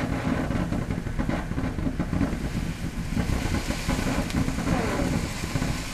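Ground fountain firework spraying sparks: a steady rushing noise with a few scattered crackles.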